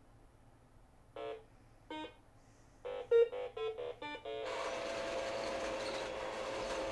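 Milton Bradley Big Trak programmable toy tank beeping electronically: two single beeps, then a quick run of beeps as it is programmed and set going. About four and a half seconds in, its battery-powered electric drive motor and gearbox start whirring steadily as it rolls forward.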